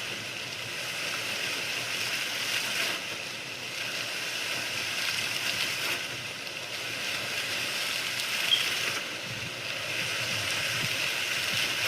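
Recorded sound effect of running water, a steady rushing stream played back from a microphone recording.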